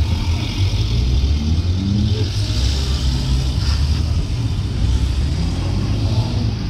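A car on the move: a steady low engine and road rumble.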